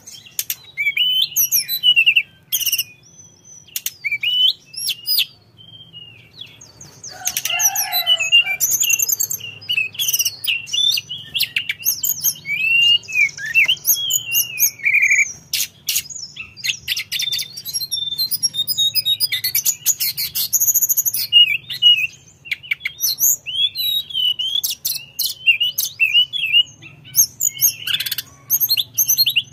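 A caged tledekan gunung, a blue flycatcher, singing a long, varied song of quick whistled notes and slurred phrases, one after another with short pauses.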